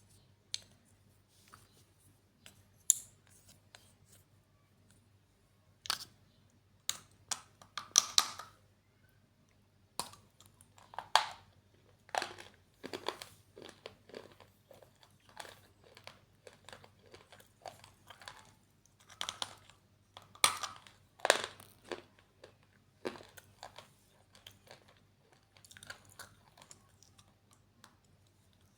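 Slate pencils being bitten and chewed close to the microphone: sharp crunching snaps every few seconds, with softer gritty chewing crackles between.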